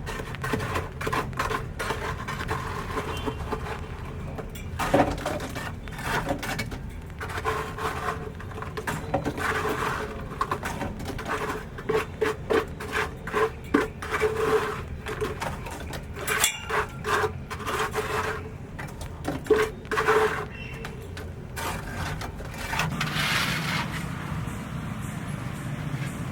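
Scraping, rubbing and knocking of hand work on wood and building materials, with many short clicks and a rhythmic stretch in the middle.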